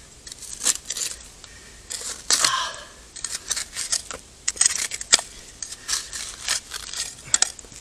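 A knife blade scraping and chipping at hard-packed dirt, with a brush sweeping loose soil away: a fast, irregular run of sharp scrapes and clicks.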